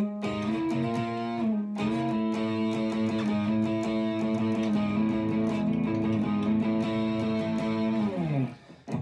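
Fender Vintera '60s Telecaster electric guitar played through a Fender GT40 amp on its Brit Color setting, holding notes and chords that ring out for several seconds. About eight seconds in, the notes slide down in pitch and die away.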